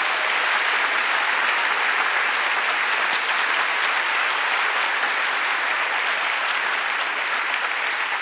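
Audience applauding: steady, dense clapping that eases off slightly near the end.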